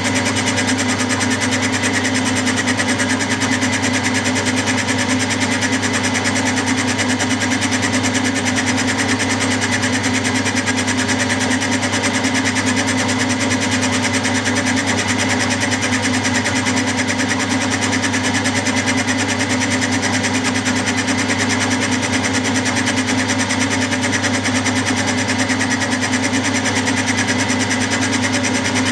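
Milling machine running steadily while a 60-degree dovetail cutter machines the bedways of a cast-iron model lathe bed: an even, continuous whirr of spindle and cut that holds the same level throughout.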